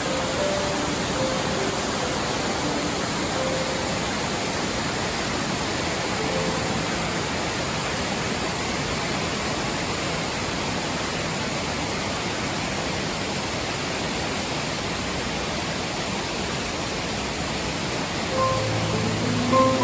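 Steady, even rush of a waterfall. A few soft piano notes are faintly heard under it early on, and clearer piano notes come back in near the end.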